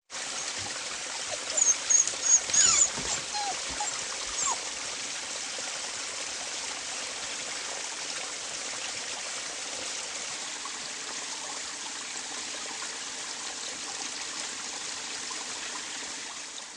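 Steady running water like a small stream, with a few short high-pitched calls in the first few seconds.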